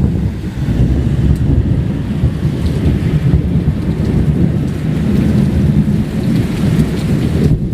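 Thunder rumbling continuously and deeply through a thunderstorm, with the hiss of rain behind it.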